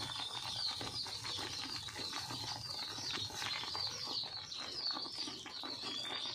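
Birds chirping over and over in quick short calls, with a wooden spatula scraping and stirring thick semolina upma in an aluminium kadai.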